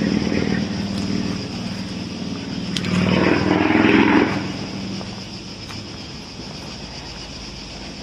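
A motor vehicle's engine passing by, growing louder to a peak about three to four seconds in, then fading away.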